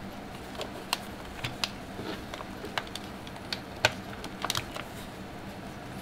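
Irregular light clicks and taps of an HHKB Pro2 keyboard being handled and set down on a desk mat, the loudest about four seconds in.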